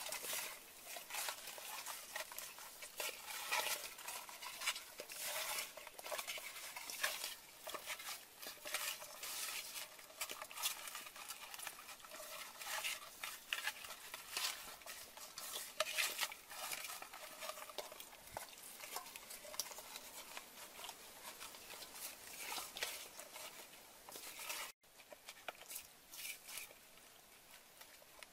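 Hands rubbing and turning a whole raw chicken with garlic, shallots and herbs in a metal bowl: irregular rubbing and clicking, with pieces knocking against the bowl. A sudden break near the end, after which it is quieter.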